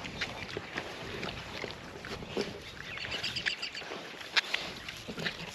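Idaho pasture pigs biting and chewing at a whole pumpkin, with scattered crunching bites and grunts.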